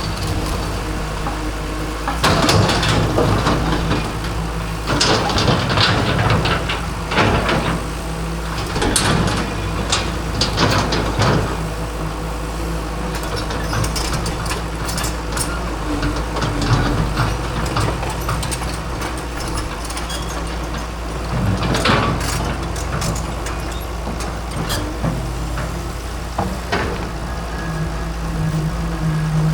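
Hydraulic excavator's diesel engine running steadily, with repeated loud bursts of crunching and clattering as the machine breaks up a concrete fence.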